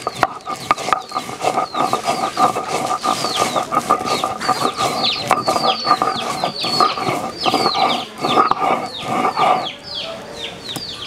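Chickens clucking and calling, with many quick high chirps falling in pitch. Throughout, a stone roller knocks and scrapes as it crushes garlic on a flat stone grinding slab (sil-batta), giving short clicks.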